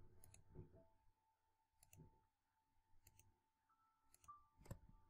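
Faint computer mouse clicks, about five of them spaced irregularly, over near silence.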